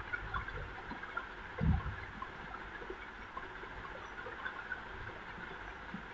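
Faint handling noise as fingertips press small kundan stones onto a glued paper earring piece, with scattered small ticks and one dull low thump about one and a half seconds in, over steady faint room noise.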